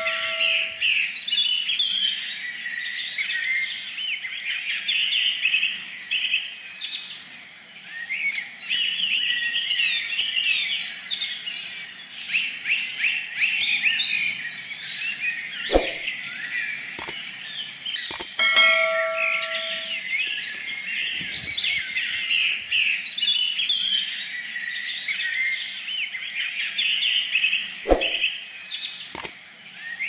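Dense chorus of many small birds chirping and twittering without pause. A short bell-like ding rings at the very start and again about two thirds of the way through, and two sharp clicks stand out at about 16 s and about 28 s.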